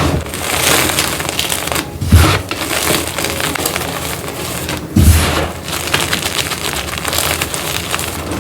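Block of gym chalk crumbling, a dense, crunchy crackle throughout, with heavier crunches right at the start and about two and five seconds in.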